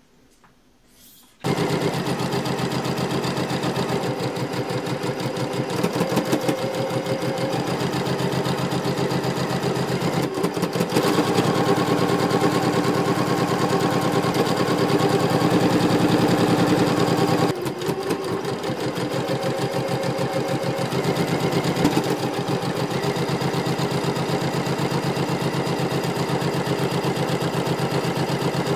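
Electric sewing machine stitching at a steady speed, a rapid run of needle strokes that starts about a second and a half in, as fabric is sewn through under the presser foot.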